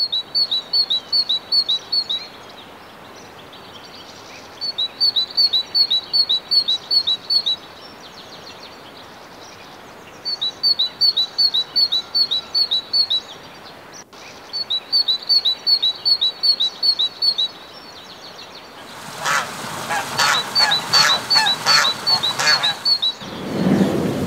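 A small songbird singing a short, quick phrase of high chirping notes, repeated four times with pauses between. About nineteen seconds in, a louder, rougher run of repeated calls joins in over the song.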